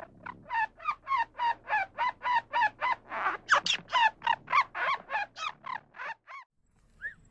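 Grey squirrel calling: a rapid series of short, sharp barking calls, about four a second, louder in the middle of the run and stopping about a second before the end.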